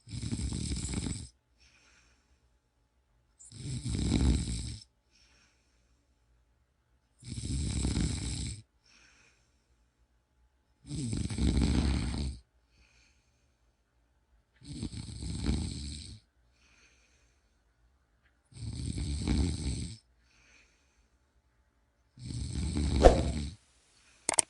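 A person snoring: seven snores, each about one and a half seconds long, coming about every three and a half to four seconds, with silence between them.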